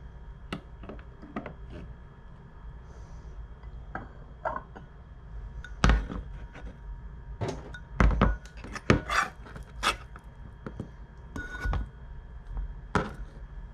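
Kitchen clatter: utensils, pots and dishes knocking and clinking at irregular intervals, a few strikes leaving a short ring. The strikes come thickest and loudest between about six and ten seconds in.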